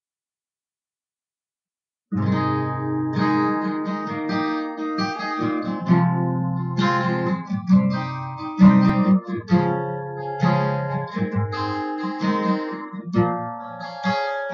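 Acoustic guitar being played, a run of chords with clear note attacks that begins about two seconds in.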